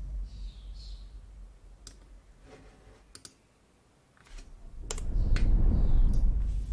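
Sharp computer clicks, about six at irregular intervals, over a low rumble that fades away in the middle and swells again in the second half.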